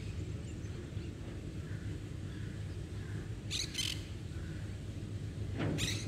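Outdoor ambience with a steady low background rumble. A small bird chirps twice in quick succession about halfway through, and a short rustling swish comes near the end.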